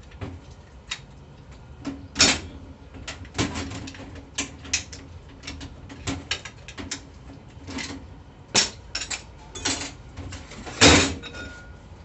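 Steel screwdriver working around a 4L60E transmission clutch drum, with irregular metallic clicks, scrapes and clinks as the clutch discs are pried loose and lifted out. The loudest clank comes near the end.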